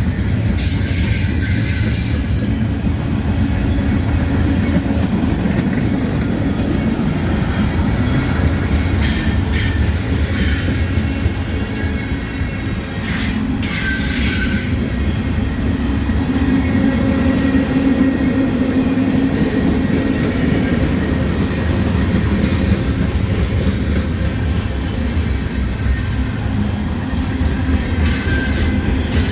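Freight cars of a long mixed freight train rolling past: a steady rumble of steel wheels on rail, with a few short high-pitched wheel squeals.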